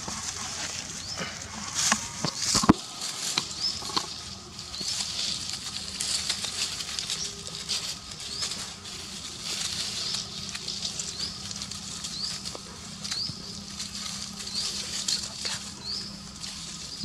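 Dry leaf litter rustling and crackling as macaques move about on the ground, with a few sharper crackles about two to three seconds in. A steady high hiss runs underneath, with short rising chirps repeating every second or so.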